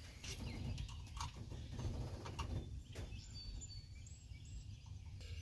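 Faint scattered clicks of hand tools and small metal parts as the distributor points of a 1953 Chevy truck are adjusted, over a low steady hum. A few faint high bird chirps come in about midway.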